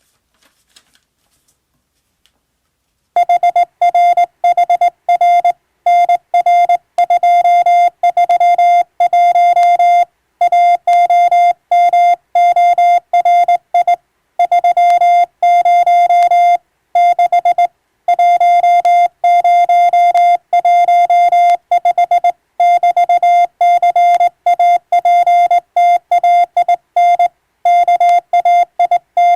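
Morse code (CW) sent as a single-pitch beep, keyed on and off in quick dots and dashes with short gaps between groups, starting about three seconds in.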